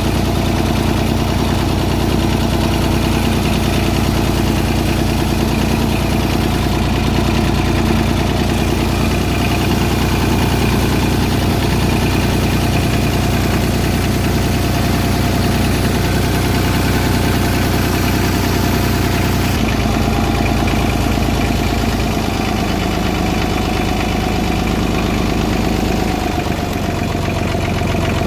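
McCormick D-324 tractor's three-cylinder diesel engine running steadily, its note shifting a few times in the later part as the engine speed changes.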